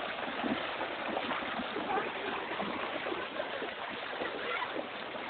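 Rushing water of a stream or waterfall: a steady wash of noise.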